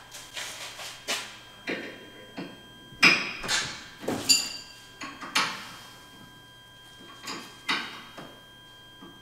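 Sharp metallic clinks and knocks of hand tools on the car's front steering parts as the toe is adjusted during a wheel alignment. They come irregularly, the loudest about three, four and five seconds in, some with a brief metallic ring.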